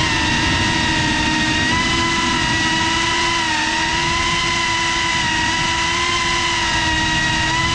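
Electric motors and propellers of a GePRC CineLog 35 cinewhoop FPV drone buzzing in flight, a steady high whine whose pitch dips and rises slightly as the throttle changes.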